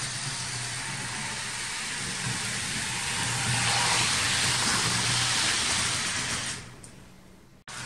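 HO-scale model train rolling along the track, a steady rushing rumble of wheels on rails and motor hum. It grows louder about three and a half seconds in as a string of freight wagons runs close past, then falls away sharply near the end.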